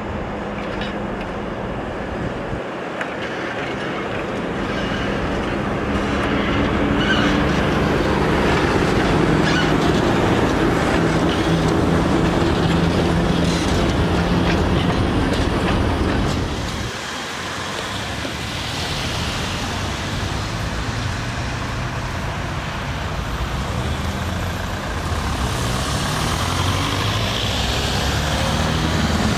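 PKP ET22 electric freight locomotive passing with a long train of open coal wagons, a steady low hum under a swelling rumble of wheels on rails. After a sudden change about 17 seconds in, street traffic noise as a Konstal 105Na tram approaches a stop.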